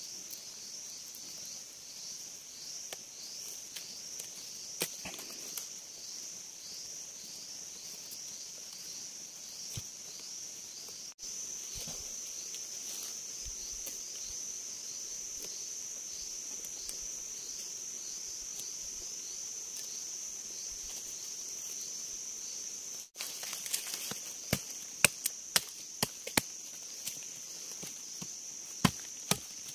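A high, steady chorus of forest insects trills throughout, pulsing in the first part. In the last few seconds a knife blade chops against a wooden stick, making sharp, separate knocks that are the loudest sounds.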